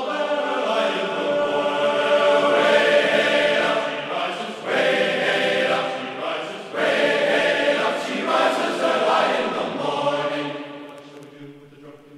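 Choral singing laid over as background music, in long sung phrases, fading out near the end.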